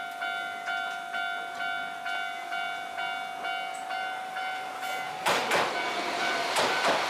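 Japanese level-crossing warning bell ringing steadily, about two strikes a second. About five seconds in, a Tokyu 300 series tram pulls in close by, and its wheels on the rails and running noise, with a few sharp clicks, rise over the bell, which keeps ringing more faintly.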